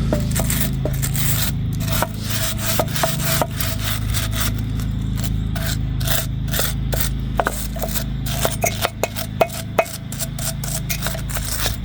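Rapid, irregular scraping and rubbing strokes over a steady low hum, cutting off suddenly near the end.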